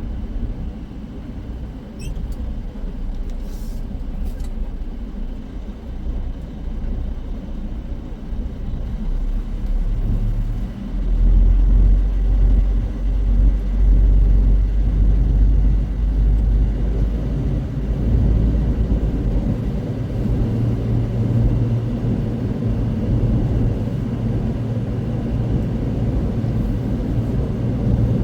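Tractor-trailer's diesel engine and road noise heard inside the cab while driving: a steady low rumble that grows louder and deeper about eleven seconds in. A few faint clicks come early on.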